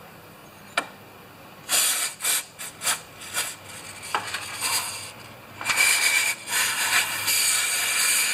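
Aerosol carburetor cleaner hissing out through its straw, used to soak the carburetor parts. It comes first in several short bursts, then as a longer steady spray over the last few seconds.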